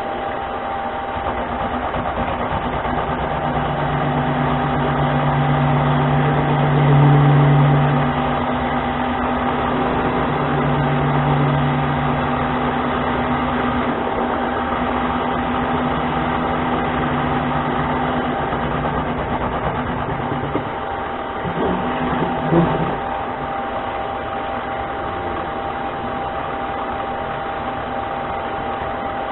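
Harbor Freight mini lathe running at about 500 RPM with a steady motor whine while a carbide-tipped tool takes a five-thousandths cut in the spinning part. A lower hum from the cut comes in a few seconds in and fades out around twenty seconds, and a few sharp knocks follow soon after.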